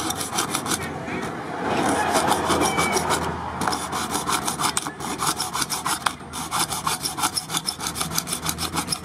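A thin saw blade sawing through the wall of a clear plastic cup in quick, even back-and-forth rasping strokes, with short breaks about three and a half and six seconds in.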